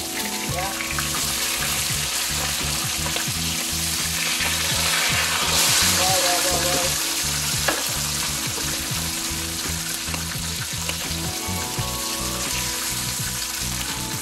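Two whole red snapper sizzling in hot oil in a frying pan near the end of frying: a steady crackling hiss that swells around the middle, with one sharp tick a little past halfway.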